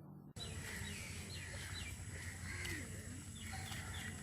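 Small birds chirping, a run of short, quick, falling chirps repeated in clusters, over a steady low hum. The sound starts abruptly about a third of a second in.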